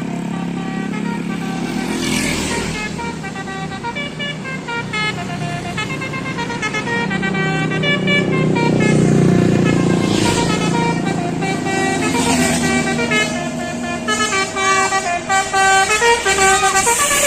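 Indonesian bus 'telolet' Basuri multi-tone air horn playing a tune of short notes that step up and down in pitch, repeated with brief breaks, over the bus engine running.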